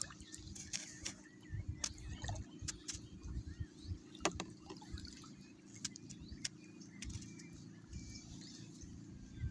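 Shallow seawater sloshing and dripping around hands working below the surface, with scattered sharp clicks and small splashes.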